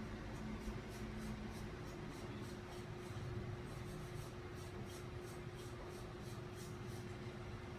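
Faint, quick rubbing strokes, about three to four a second, as the cooling parts of an overheating computer are cleaned by hand, over a steady low hum.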